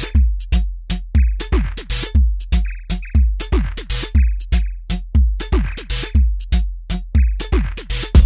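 House beat played on a Native Instruments Maschine: a steady kick drum about twice a second, with repeated falling-pitch drum hits and sparse clicks and hi-hats over it.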